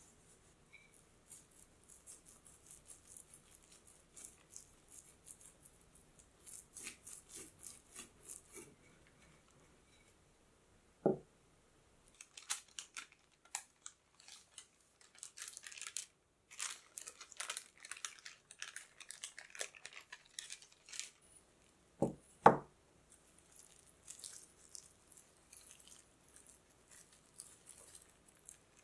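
Hands working chocolate tart dough on baking paper: soft brushing of flour across the dough and rustling and peeling of the paper. A single knock comes about a third of the way through, and two sharp knocks close together about two-thirds through are the loudest sounds.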